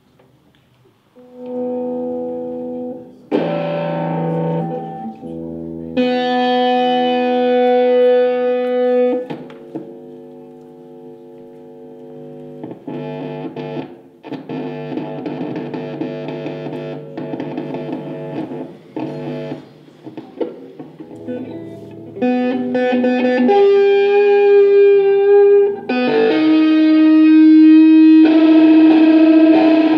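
Instrumental music of long held chords that change every few seconds, starting about a second in and growing louder toward the end.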